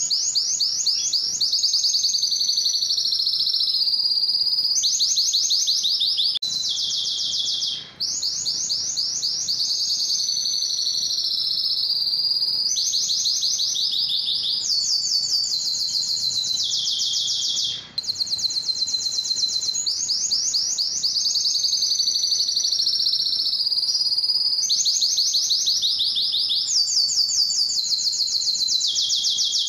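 Male domestic canary singing a continuous song of rapid high trills, moving to a new trilled phrase every second or two, with two brief pauses for breath.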